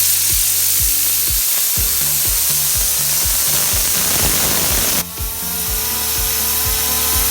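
Loud whirring, hissing noise that starts abruptly and changes character about five seconds in, over background music with a steady beat.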